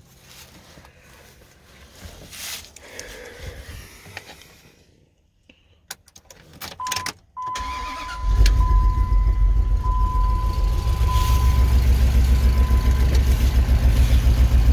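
2005 Dodge Ram's 4.7 Magnum V8 is cranked and started about eight seconds in, then idles steadily through a new Flowmaster 50 Series muffler and new catalytic converters, much quieter than before. Before it starts there are a few sharp clicks, and a steady electronic tone begins shortly before the engine catches.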